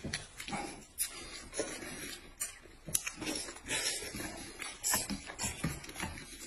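Close-up eating sounds: irregular noisy slurps of noodles and chewing, with a few sharp clicks from chopsticks or bowls.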